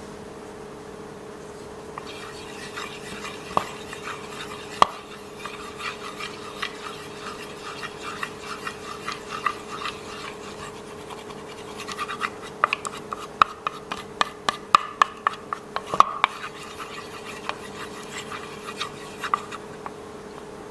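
Slime being squished and worked by hand, making many small sticky clicks and pops that grow densest about two-thirds of the way through, over a steady low hum.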